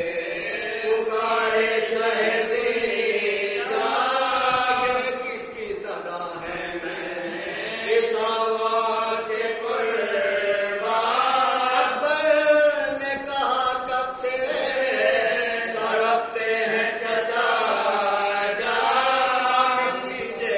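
Unaccompanied male voices chanting an Urdu marsiya, a Muharram elegy for Hazrat Abbas, in long drawn-out melodic phrases, a lead reciter with a group of men joining in.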